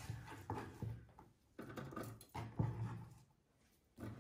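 Diced red bell pepper pieces being scooped by hand and dropped into an air fryer's wire-mesh basket: faint, irregular soft taps and rustles, stopping briefly twice.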